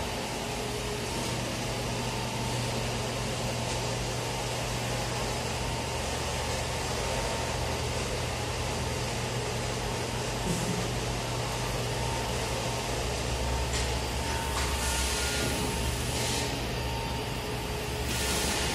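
IMAI F586C automatic PVC edge banding machine running, its motors giving a steady hum with a constant whine over it. Short bursts of hiss come in a few seconds before the end.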